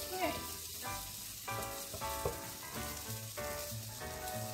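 Veggie burger patties frying in oil in a frying pan, a steady sizzle, with a few sharp clicks of a spatula and fork against the pan as they are turned. Background music plays over it.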